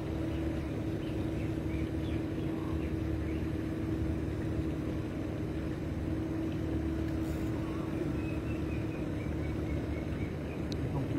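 An engine running steadily: an even low hum with one constant tone, unchanging throughout.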